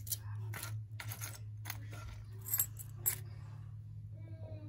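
Costume jewelry clinking and jangling as hands rummage through a wooden jewelry box: a string of sharp little metallic clicks, with two louder clinks past the middle.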